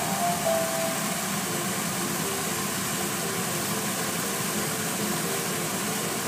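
Steady hiss and hum of an idling car and car-wash machinery, heard from inside the car's cabin. A faint melody of short notes plays over it.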